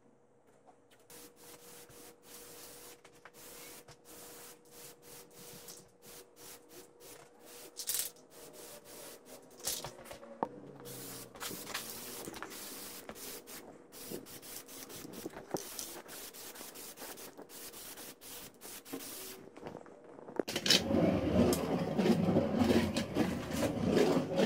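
Rubbing, scraping and small clicks of hands working on parts, over a faint steady hum. From about twenty seconds in the handling becomes louder and heavier.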